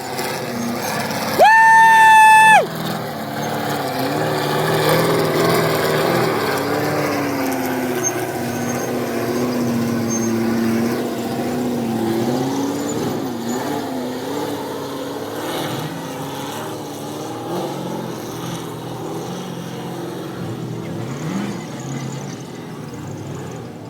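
Ultra4 race car's engine revving unevenly, its pitch rising and falling, slowly fading toward the end. About a second and a half in, a loud horn blast lasts about a second.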